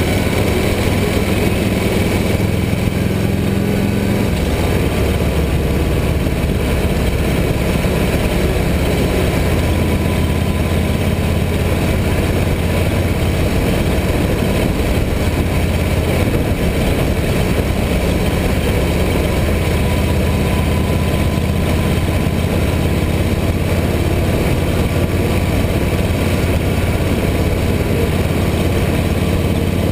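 Harley-Davidson motorcycle's V-twin engine running steadily at cruising speed, its note shifting slightly a couple of times, over a steady rush of wind and road noise.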